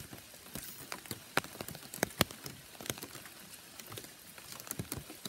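Rain falling, with individual drops ticking sharply and irregularly over a soft hiss.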